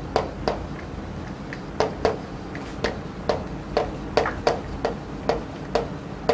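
Chalk tapping and scratching on a chalkboard as words are written, heard as a string of short, irregular clicks about two a second.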